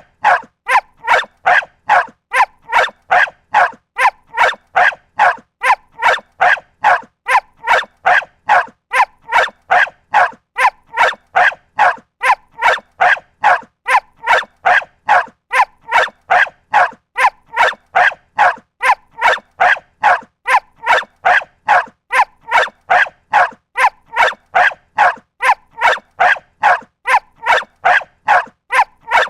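A dog barking over and over at a very even pace, about two barks a second, with no pause.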